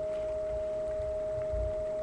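A steady single-pitch hum with a fainter second tone under it, over soft low bumps that are a little stronger about one and a half seconds in.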